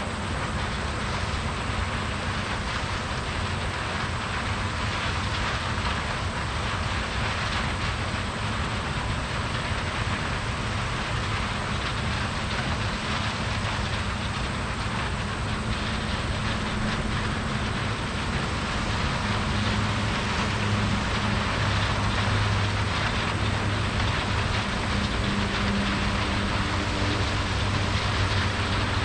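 Heavy vehicle engine running steadily under a constant rushing hiss, its hum growing a little stronger in the last third.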